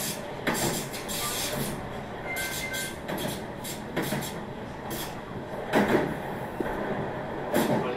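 Meitetsu 1700 series electric train running: a steady rumble of wheels on the track, broken by several louder sharp clacks.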